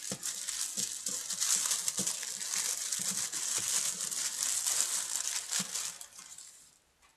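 Plastic wrapping crinkling and rustling as a necklace is unwrapped from it, fading out near the end.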